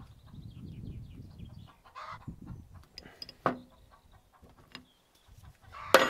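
Combination spanner working the steel hydraulic hose fittings on a spool valve, with handling rumble and light metallic clicks, then a sharp ringing metal clank near the end as the spanner is set down on the tractor's sheet-metal bodywork. Farmyard fowl call in the background.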